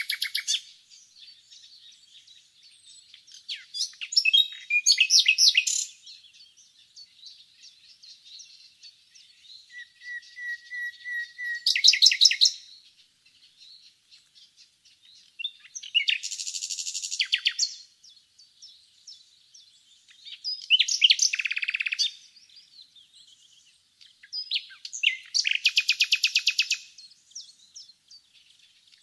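Common nightingale singing: a phrase every few seconds, separated by short pauses, made of fast rattling trills and sharp notes. About ten seconds in, a run of soft repeated whistles swells into a loud rapid phrase.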